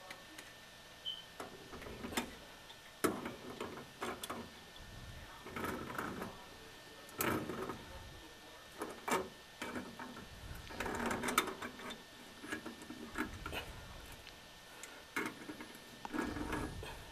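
Tongue-and-groove pliers working the chrome slip nuts of a new P-trap: irregular metallic clicks and short scraping rattles as the jaws grip and turn the nuts.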